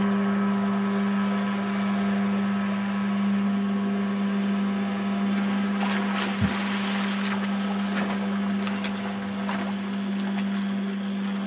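Motorboat engine running at a steady speed, a constant low drone that holds one pitch. A rush of water or wind noise swells about six seconds in, with a single brief thump in the middle of it.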